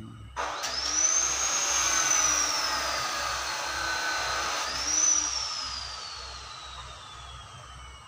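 Handheld electric power tool cutting into an areca palm trunk. Its motor whines up sharply, then slides slowly down in pitch. About halfway through it revs up again and slides down once more, fading near the end.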